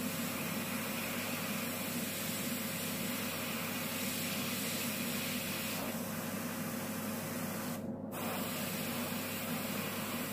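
Airbrush spraying nail paint in a steady hiss of air, which cuts out briefly about eight seconds in.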